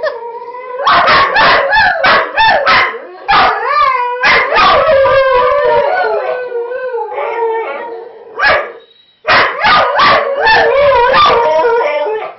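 Several whippets howling together, long wavering howls overlapping with sharp yips and barks. They break off briefly about nine seconds in, then start up again.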